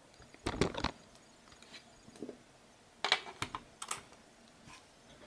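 Two short runs of light clicks and taps, one about half a second in and several more around three to four seconds in.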